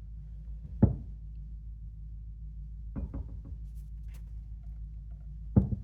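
Knocks and clicks from a DeWalt DWS780 compound miter saw as its head is tilted over on its bevel: one sharp knock about a second in, a few lighter clicks around three seconds in, and another knock near the end, over a steady low hum.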